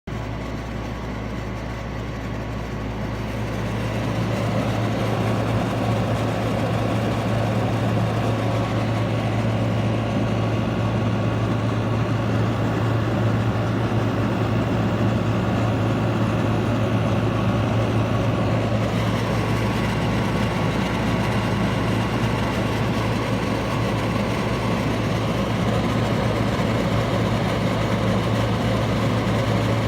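Frigidaire 10,000 BTU window air conditioner running: a steady low compressor hum under the rushing air of its fan, getting louder about four seconds in.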